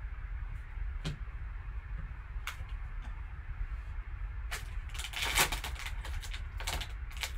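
Empty foil card-pack wrapper crumpled and crinkled in gloved hands: a couple of single clicks early, then a dense run of crackling from about halfway through. A steady low hum sits underneath.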